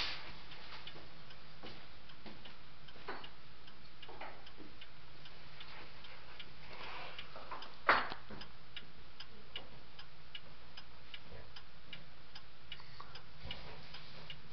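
Tiffany champlevé crystal regulator clock ticking steadily, about three ticks a second. One louder knock about eight seconds in.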